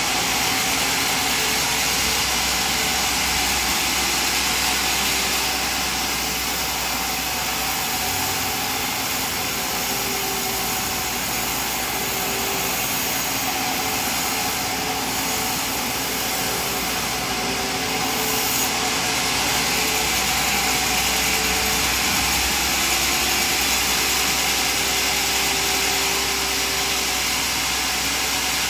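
Sawmill machinery running steadily: a continuous loud mechanical noise with an even hiss and a faint hum underneath, with no break or distinct cut standing out.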